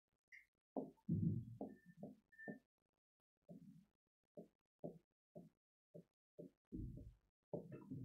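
Faint, irregular knocks and thuds of a pen writing on an interactive display board, about a dozen short strokes with a couple of brief squeaks early on. The loudest cluster comes about a second in.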